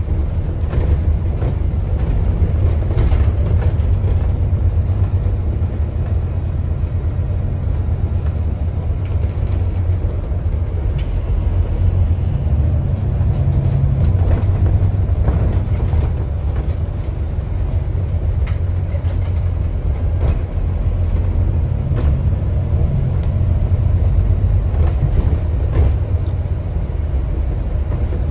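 Inside an Alexander Dennis Enviro400 MMC hybrid double-decker bus under way: a steady low rumble of drivetrain and road, with scattered light rattles and knocks from the bus body and fittings.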